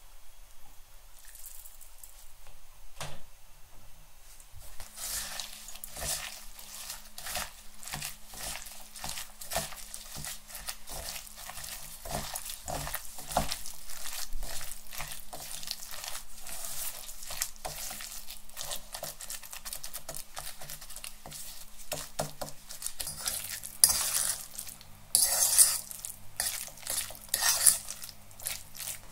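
Hands squeezing and kneading a wet mixture of chopped meat, onion, egg and bread in an enamel bowl: a rapid run of small squelches. Near the end a fork stirs the mixture, scraping and clinking against the bowl.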